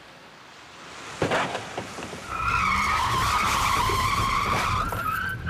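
A driverless test vehicle's tyres squeal in a hard skid for about three seconds, starting about two seconds in after a sharp knock. The squeal edges up in pitch near the end.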